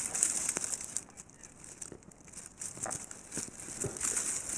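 Dry eucalyptus leaves and thin twigs crinkling and rustling as they are handled and laid over a small, newly lit kindling fire, with a few small clicks.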